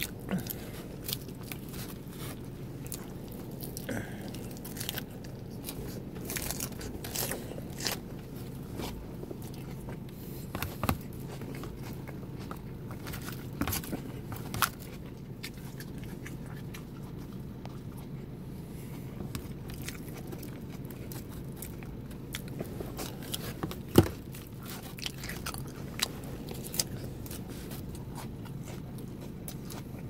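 A person chewing egg salad with crisp lettuce close to the microphone: wet crunching and biting, with many sharp clicks scattered throughout and one louder knock about 24 seconds in, over a steady low hum.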